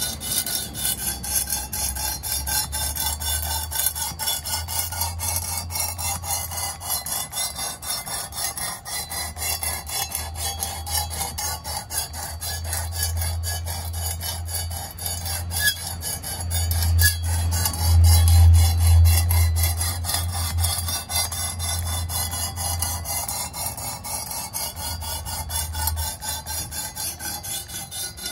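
Coarse 220-grit sharpening stone on a Work Sharp guided sharpener being stroked rapidly back and forth along a knife edge: a continuous rasping scrape. It is coarse grit, used to grind out a divot in the edge. A low rumble runs under it and is loudest about two-thirds of the way through.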